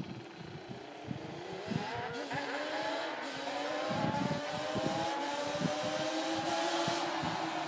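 1990 Yamaha Banshee ATV's twin-cylinder two-stroke engine on T6 pipes, being ridden: it revs up about two seconds in and then holds a steady, crisp note while growing steadily louder.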